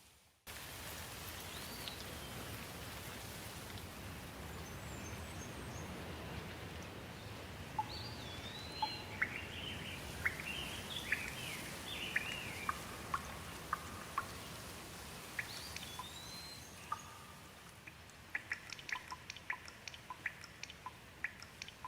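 Steady rain falling on leaves, starting abruptly after a brief gap about half a second in. Birds call over it in the middle stretch, and near the end a quick run of short sharp ticks stands out from the rain.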